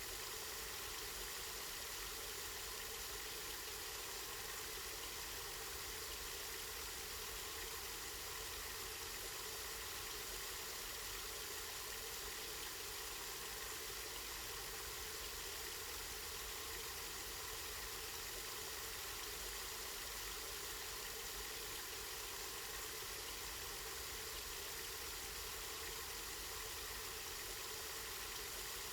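Water from a spring running steadily, a continuous even rush with no breaks or changes.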